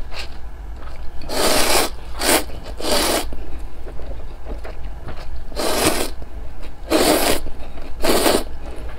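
Close-up slurping of instant noodles sucked into the mouth from chopsticks. There are six short, wet slurps, three in quick succession early on and three more in the second half.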